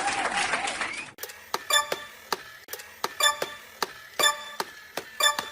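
Repeated light clicks or taps, each with a short ringing tone, about two a second and some in quick pairs.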